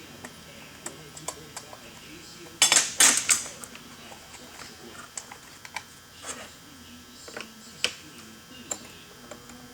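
Clicks, knocks and a short clatter of small hard parts and tools being handled on a chainsaw on a workbench, loudest about two and a half to three and a half seconds in, with scattered single clicks after.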